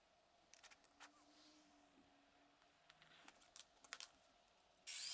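Faint scattered clicks of small metal parts being handled, then near the end a high-pitched power-tool whine cuts in suddenly, its pitch wavering. This is the small cutting tool with a thin saw blade used for a rough cut in steel.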